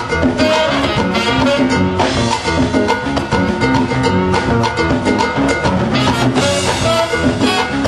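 Live Latin jazz band playing a salsa groove, with congas, drum kit, piano and horns.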